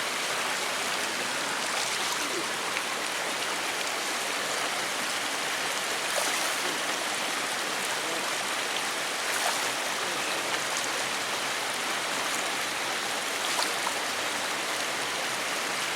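Steady rushing of a flowing stream, an even wash of water noise with a few faint ticks.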